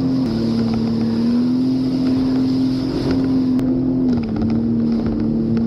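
Sea-Doo jet ski engine running steadily at cruising speed, its note stepping slightly up and down with the throttle, over a constant rush of water and wind.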